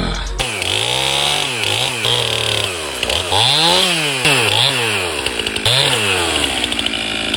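Chainsaw cutting wood, its engine revving up and dropping back again and again as it works through the cut.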